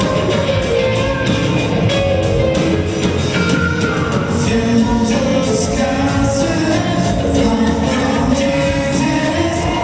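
Live rock band playing electric guitar, bass and drums with a steady beat, and a voice singing over it.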